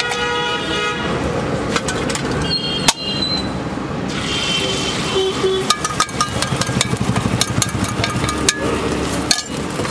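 Quick metallic clinks and taps of a steel mug, fork and spatula against a large flat iron griddle, over a steady background of stall and street noise. The clicks come thick and fast in the second half.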